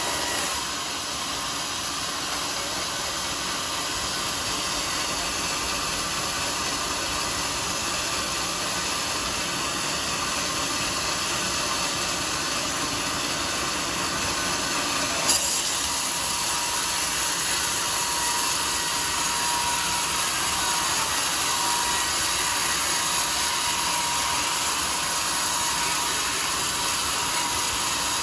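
Sawmill saw cutting a teak log: a steady whirring saw noise with a constant high whine, and one sharp crack about halfway through.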